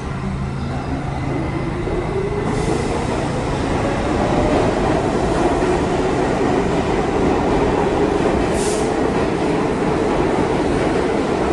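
R68 subway train running past the platform at speed: steel wheels rumbling on the rails, with a motor whine that rises in pitch over the first several seconds and then holds steady. A short high hiss comes about eight and a half seconds in.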